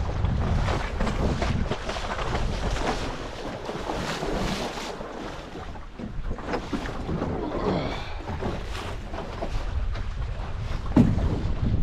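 Gusty wind buffeting the microphone over irregular water splashing and sloshing around a sailing dinghy and its launching trolley, with a sharp knock near the end.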